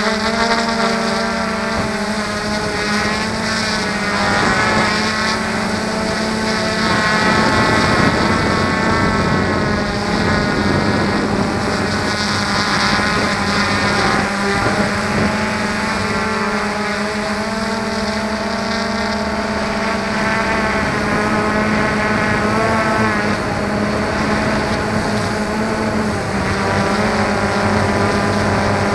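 Multirotor drone's electric motors and propellers buzzing steadily, a whine of many tones whose pitch wavers slightly as the motors change speed.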